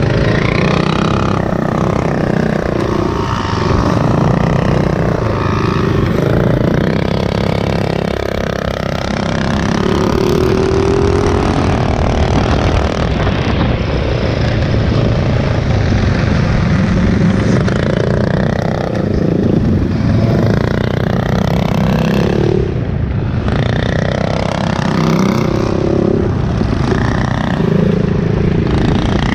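Mini bike engines racing, heard from on board one of the bikes, rising and falling in pitch as the throttle opens and closes through the turns. The engine eases off briefly about eight seconds in and again a little past twenty seconds in.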